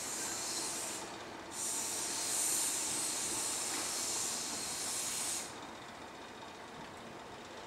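A locomotive in the yard letting off a loud, high-pitched hiss of escaping steam or air. The hiss breaks off briefly about a second in, starts again, and stops abruptly after about five and a half seconds.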